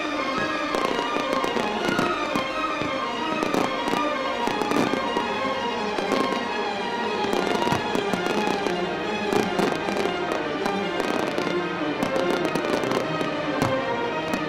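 Fireworks going off in rapid succession, many sharp bangs and crackling pops, over music with sustained tones.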